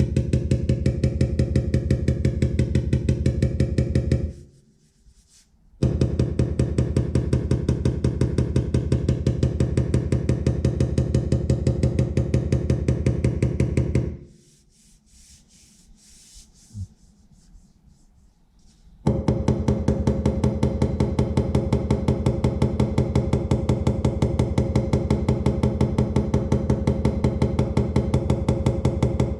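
Background music with a fast, steady beat of about four strokes a second. It cuts out suddenly twice, once briefly and once for about five seconds in the middle, leaving near quiet with a single faint knock.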